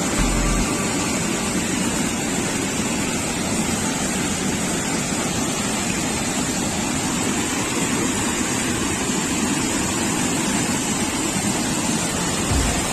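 Fast white-water river rushing steadily, an even unbroken noise of water.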